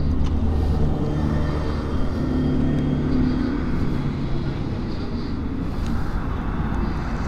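Motor traffic on a highway: a vehicle engine's steady low hum for the first few seconds, then an even rumble of passing traffic.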